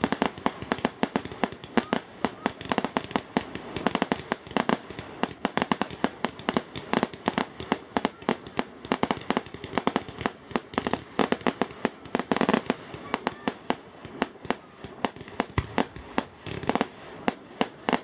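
Aerial fireworks bursting: a dense, irregular string of sharp cracks and bangs, several a second.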